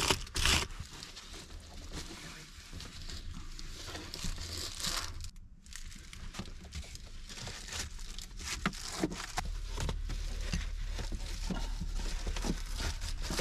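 Crinkling and rustling of reflective foil insulation window covers being handled and pressed into a minivan's windows, with scattered light taps and knocks.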